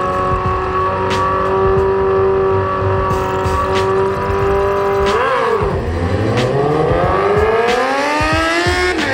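Two drag-racing motorcycle engines held at steady high revs on the start line, then launching about five seconds in: the engine pitch dips and then climbs steadily as the bikes accelerate away, with a gear change near the end.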